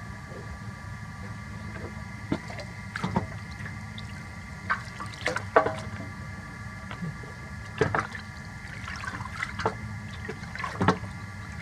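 Irregular splashes and drips of water, a dozen or so short sharp strokes, over a steady hum.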